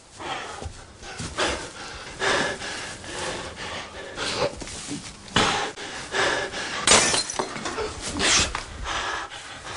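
Two men fighting with their fists: a series of heavy blows and crashes, with grunts and hard breathing.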